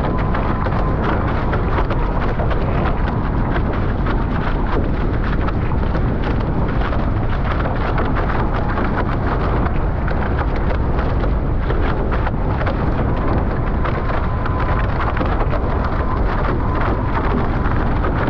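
Loud, steady wind rumbling and crackling on the camera microphone, mixed with rushing water, aboard a Nacra 15 sailing catamaran under way.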